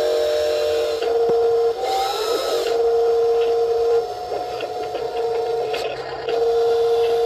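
Huina 1583 RC metal wheel loader's electric motors whining as they work the arm and bucket, running in stretches of a second or two that stop and start again, with a brief change in pitch about two seconds in.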